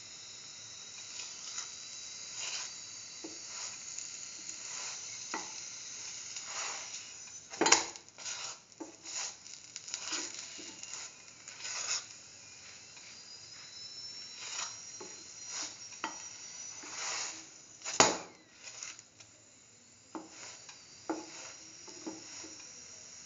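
Wheat flatbread sizzling in clarified butter in a metal pan while a flat spatula presses and scrapes it against the pan. Two sharp knocks of the spatula on the pan are the loudest sounds, and the sizzle drops away briefly near the end.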